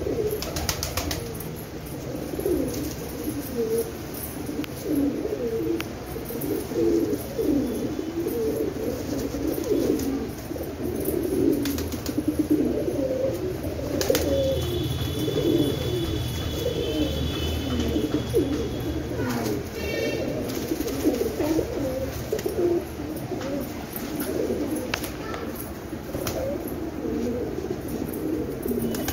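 A flock of domestic pigeons cooing in a dense, overlapping chorus, with a few wing flaps and clicks.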